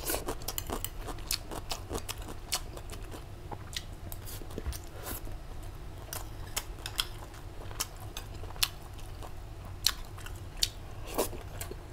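A person chewing food close to a clip-on microphone, with irregular sharp crunches and mouth clicks.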